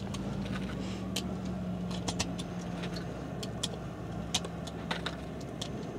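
Steady low hum of an idling engine, its pitch dropping slightly about halfway through, with scattered light clicks.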